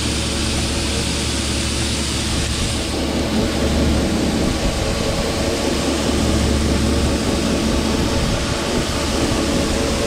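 Shelled corn pouring steadily from an unloading auger into a grain trailer, a continuous rushing of grain over the steady running of the tractor engine and auger drive.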